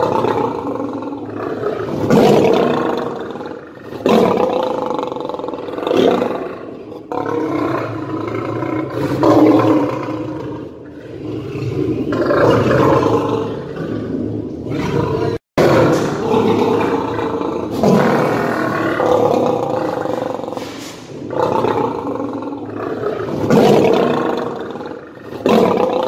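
Angry lion roaring over and over, a new roar about every two seconds, with a brief dropout about halfway through.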